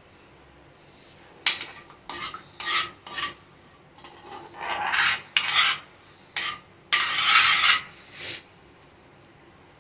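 Metal spoon scraping the bottom of an iron kadai while stirring cumin seeds in hot oil, in about ten uneven rasping strokes that start a second and a half in and stop near the end.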